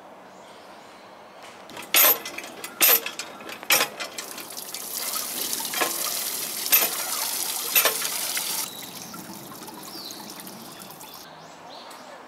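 Hand-operated lever water pump being worked: its lever clanks with each stroke, about six strokes a second apart, and water gushes from the spout and splashes onto the drain grate below from about four seconds in, stopping suddenly near nine seconds.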